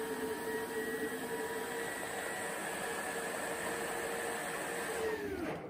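LG CordZero cordless stick vacuum running with a steady whine, then switched off near the end, its pitch falling as the motor spins down.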